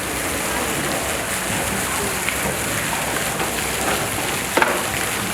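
Steady rushing water noise, with faint voices underneath and one short knock about four and a half seconds in.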